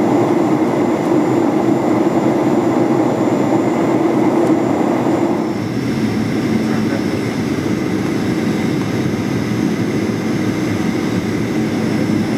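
Cabin noise inside a Boeing 737-800 on approach: a steady rush of air and the hum of its CFM56 jet engines. About five seconds in the sound shifts, the louder rush dropping away and a lower steady hum coming through.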